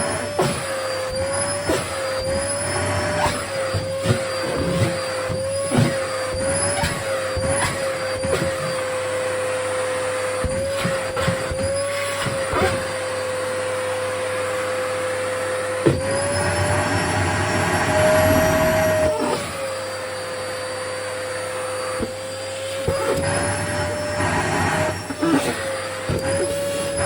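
Vacuum cleaner motor running with a steady whine whose pitch wavers as a camisole is drawn against the nozzle, with scattered small clicks. About two-thirds of the way through, the sound turns louder and rougher for a few seconds and the whine rises a little, then settles back.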